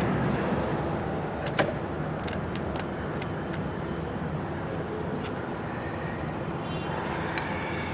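Steady workshop background noise with a sharp metallic click about one and a half seconds in and a few lighter clicks after it, from parts and tools being handled on an engine under repair.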